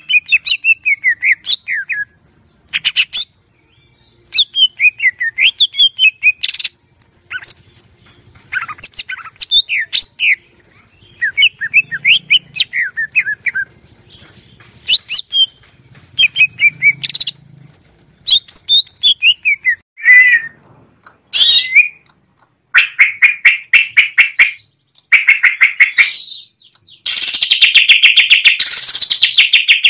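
Green leafbird (cucak ijo) singing a varied song: runs of quick slurred chirps and whistled notes broken by short pauses, turning into a fast continuous trill near the end.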